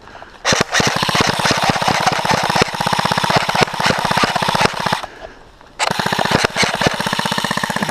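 Airsoft rifle firing on full auto as a rapid, even clatter of shots: one long burst of about four and a half seconds, a short pause, then a second burst of about two seconds.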